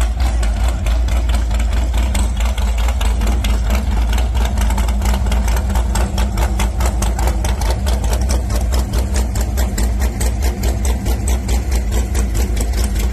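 Race boat engine idling through open chrome headers, a loud, steady rumble with a rapid, even pulsing beat.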